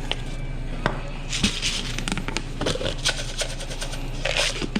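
Kitchen line work: scattered light clicks and knocks of utensils and cookware, with two short scraping hisses, about a second in and again near the end, over a steady low hum.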